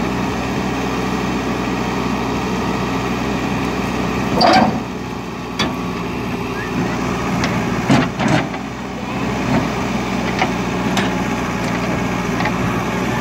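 JCB 3DX backhoe loader's diesel engine running steadily under load as its bucket pushes an overturned tractor trolley back upright, with several sharp metal clanks and knocks, the loudest about four and a half and eight seconds in.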